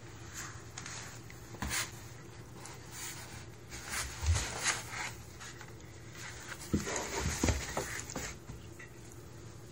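A cat moving about inside a cardboard box: scratching and rubbing on the cardboard, with a few soft bumps now and then.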